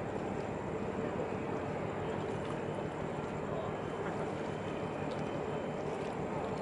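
Steady distant hum of a large container ship under way, with an even mid-pitched tone running through a constant wash of noise.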